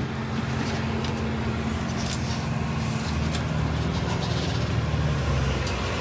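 Steady low mechanical hum with a few faint taps over it; the hum swells a little in the middle.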